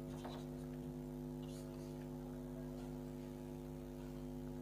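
Steady electrical mains hum in the recording, with a couple of faint marker strokes on a whiteboard within the first two seconds.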